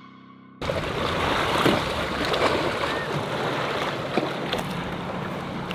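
Wind buffeting the microphone over open water, with small splashes and water noise; after a moment's quiet at the start it sets in suddenly, and a steady low motor hum joins near the end.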